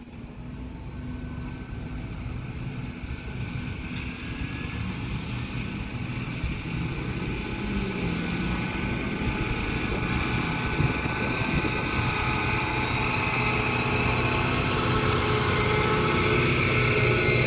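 Sperry rail-testing hi-rail truck running along the track, getting steadily louder as it approaches and passes close by near the end. A low engine and wheel rumble sits under a steady high-pitched whine.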